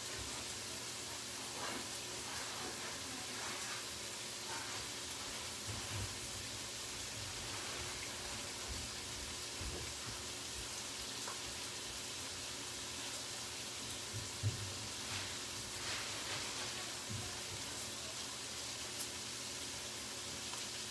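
Bacon sizzling steadily in a large frying pan, with a few faint knocks.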